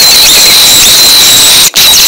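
A very loud, heavily distorted high-pitched squeal with a steady shrill tone over harsh noise. It breaks off for an instant near the end.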